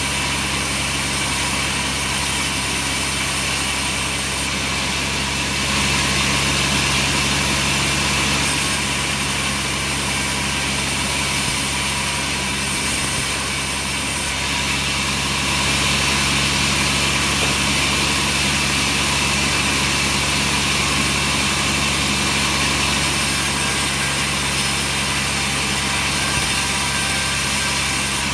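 Sawmill machinery running steadily: a constant engine-like hum with steady low tones under an even hiss.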